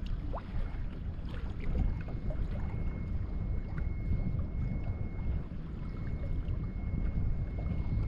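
Wind buffeting the microphone on a kayak on choppy water, a steady gusty rumble, with small waves lapping and ticking against the hull. A faint thin steady tone is also present.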